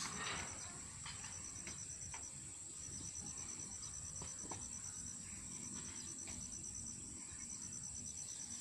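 Field insects chirping: a steady high buzz with a rapid pulsing trill over it that stops and starts again several times, and a few faint clicks.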